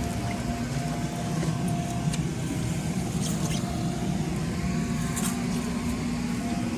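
Electric blower motor running steadily with a constant hum, keeping the inflatable bounce house up while the patch is tested under pressure.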